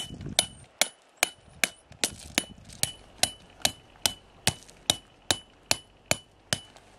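Tent peg being hammered into hard ground: a steady run of about sixteen sharp strikes, roughly two and a half a second, each followed by a brief ring.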